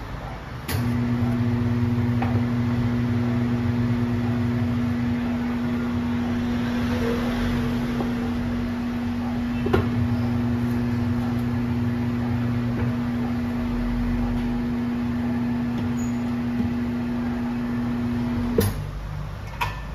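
Tyre-changing machine's electric turntable motor running with a steady hum as a scooter tyre is worked onto its rim. It starts about a second in and stops suddenly with a clunk near the end, with a sharp knock about halfway through.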